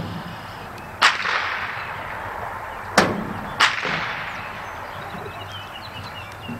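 Blank pistol shots fired during the dog's heeling exercise: one sharp crack about a second in, then two more close together about two seconds later, each ringing out across the stadium. This is the gunfire test of the dog's gun-sureness.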